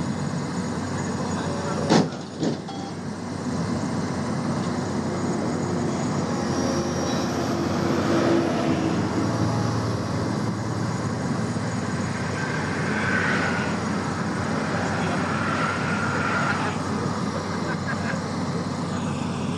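Steady vehicle engine and road noise, with two sharp knocks about two seconds in.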